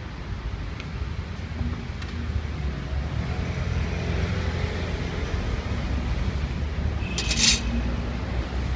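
Steady low rumble of road traffic, with a short sharp hiss about seven seconds in.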